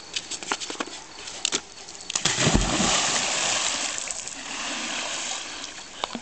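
A person plunging into an outdoor swimming pool: a heavy splash with a deep thump about two and a half seconds in, then a few seconds of churning, sloshing water that slowly dies down. Scattered light clicks come before the splash.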